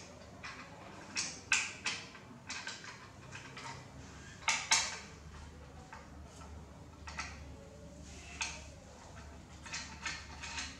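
Irregular small metallic clicks and knocks as the fastening screw under an alt-azimuth telescope mount is turned and the mount is worked onto its tripod head. The louder knocks come in the first five seconds, with lighter clicks after.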